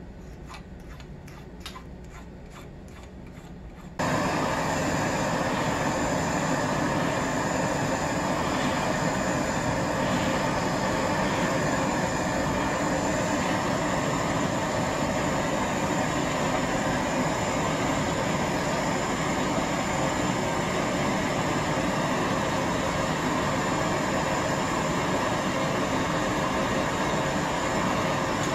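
A hand file rasping in short strokes on a small brass piece. From about four seconds in comes the steady hiss of a Bernzomatic MAP-Pro hand torch flame, heating a brass dress hook held in tongs.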